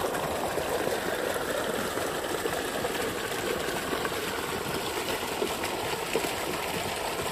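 Water gushing from a pipe outlet into a pool, splashing and churning the surface steadily.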